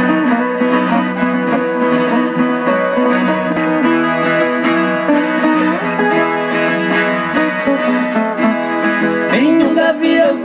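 Acoustic guitars picked and strummed together, playing the instrumental intro of a sertanejo song through a stage sound system.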